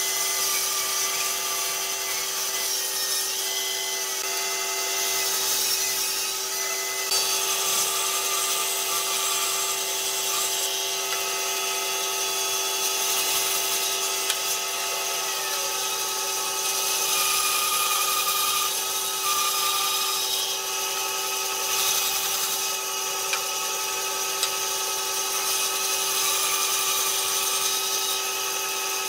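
Bandsaw running and cutting through the ends of curved wooden pieces: a steady motor hum with a high hissing whine, its pitch dipping slightly now and then as the blade bites.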